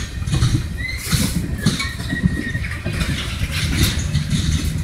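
Freight train cars rolling past close by: a continuous low rumble of steel wheels on the rail with clanking, and thin high metal squeals about a second in and again around two seconds in.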